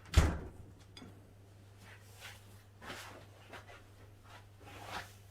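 A single sharp thump just after the start, then a few faint short knocks and handling noises, over a steady low mains hum.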